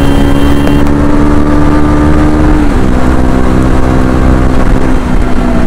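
KTM 250 Duke's single-cylinder engine under acceleration, its note climbing slowly. About two and a half seconds in it drops in pitch with an upshift, then runs on steadily.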